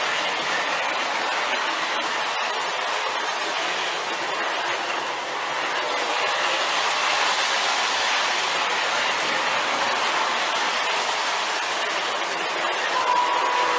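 Williams Delaware & Hudson PA-1 O-gauge model diesel pair, a powered unit and a dummy, running on the track with a steady rolling and motor noise that grows a little louder as it passes close. A steady tone comes in near the end.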